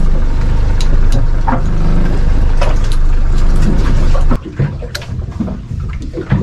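Steady, loud engine rumble of something underway, with scattered clicks over it; it stops suddenly about four seconds in, leaving quieter knocks.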